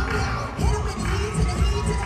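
Hip-hop dance track played loud over a hall sound system, with a heavy bass beat about twice a second and swooping synth tones, over a cheering crowd.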